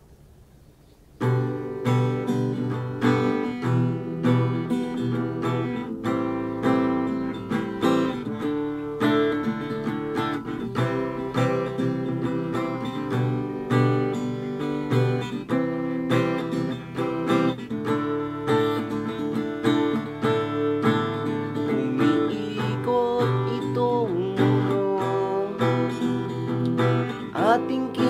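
Acoustic guitar strummed in a steady rhythm, playing the instrumental introduction to a song. It starts about a second in.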